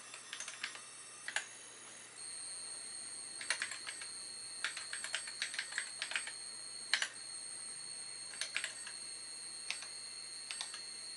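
Keys being typed on a TRS-80 Model 3/4 keyboard: irregular clusters of sharp clicks. A steady high whine starts about two seconds in and runs under the keystrokes.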